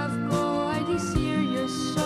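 Background music: a melody over held chords, with occasional drum hits.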